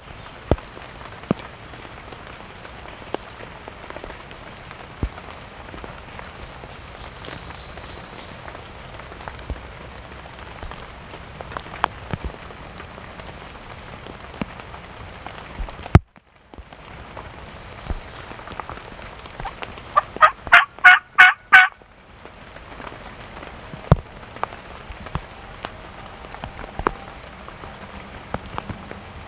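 Steady rain hiss with scattered drops ticking. About two-thirds of the way through, a wild turkey gobbles once: a quick rattling run of notes, the loudest sound here.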